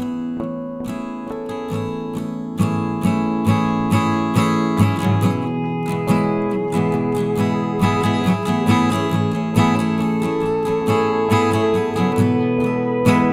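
Background music: acoustic guitar strummed and picked in a steady rhythm, getting fuller about two and a half seconds in.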